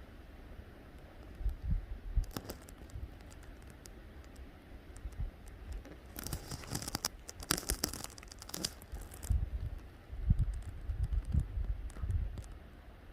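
Crackling, clinking clatter of a lava flow, its cooled crust breaking and blocks tumbling. It is scattered at first, then a dense burst of about three seconds midway. Low thumps on the microphone follow near the end.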